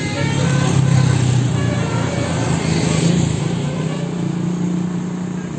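A motor vehicle's engine running close by, a steady low drone that is loudest in the first few seconds and then eases off.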